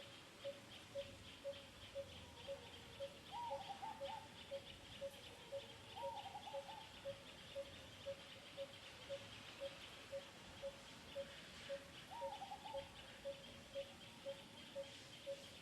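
Outdoor animal ambience: a steady high insect buzz with an even pip about twice a second, and three short squeaky calls, each rising then wavering, about three, six and twelve seconds in.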